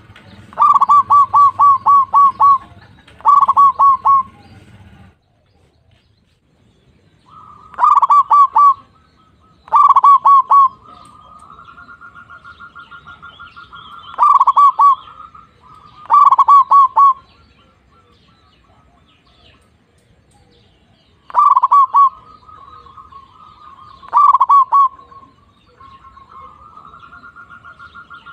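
Zebra dove (perkutut) singing: about eight loud bursts of rapid, staccato cooing notes, some joined by a softer, purring trill, with a short pause after the first two bursts.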